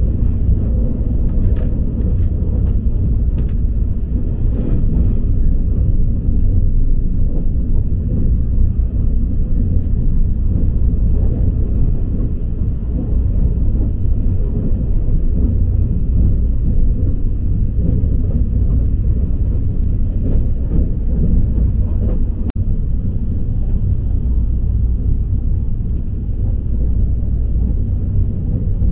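Electric train running along the line, heard from inside the passenger car: a steady low rumble, with a few light clicks in the first few seconds.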